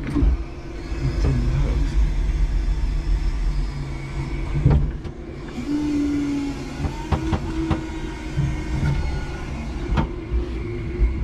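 5-ton electric forklift truck heard from inside its cab: electric motors humming steadily, with a stronger hum about six to eight seconds in, and a few short knocks from the mast and forks.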